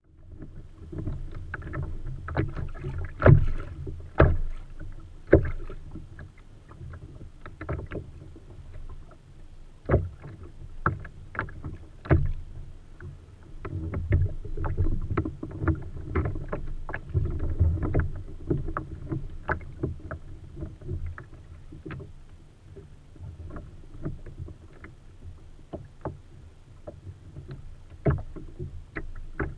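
Water lapping and slapping against a plastic kayak hull, with many irregular sharp knocks and clicks, the loudest about three and four seconds in, over a steady low rumble.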